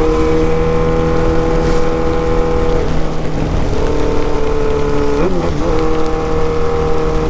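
Yamaha XJ6's 600 cc inline-four engine running through a straight pipe with no muffler, holding a steady note at riding speed. The note breaks and shifts briefly about three seconds in and again a little after five seconds.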